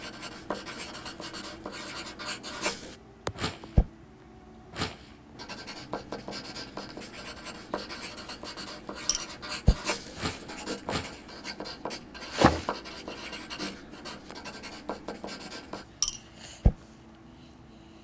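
Close scratching and rustling with many small clicks, broken by a handful of sharp, loud knocks, the last about three-quarters of a second before the end, after which it turns quieter.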